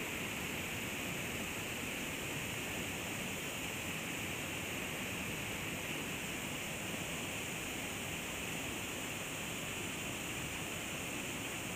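Steady rush of creek water spilling over a small waterfall into a pool.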